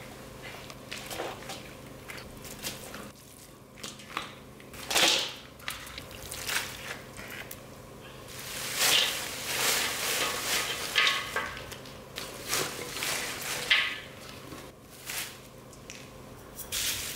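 Wet rustling and squishing in irregular bursts, as hands work salted napa cabbage for kimchi, over a faint steady low hum.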